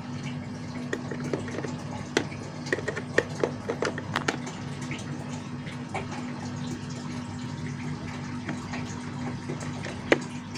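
A screwdriver turning a small screw out of a digital multimeter's plastic battery cover: scattered light clicks and scrapes of metal on screw and plastic, thickest in the first few seconds, with one sharper click near the end. A steady low hum runs underneath.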